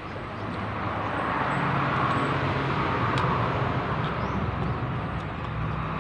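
Engine noise of a passing motor vehicle, growing louder over the first two seconds and then holding steady with a low hum.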